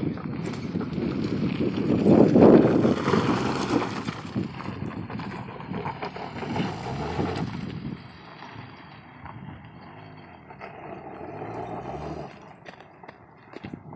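2003 Honda CR-V driving off-road: its engine running under the noise of the tyres over rough ground. It is loudest a couple of seconds in and quieter in the second half, with a few knocks near the end.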